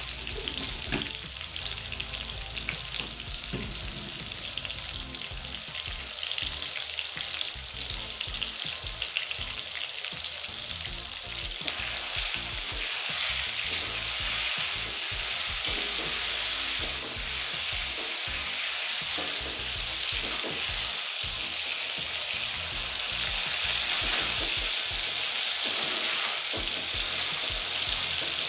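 Tomato pieces frying in hot mustard oil in a wok: a steady, dense sizzle with fine crackling, growing louder about twelve seconds in. A metal spatula stirs the tomatoes through the oil.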